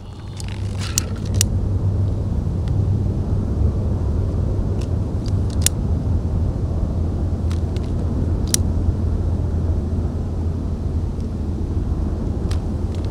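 A steady low rumble, with a few scattered sharp clicks and snaps while a campfire is being lit.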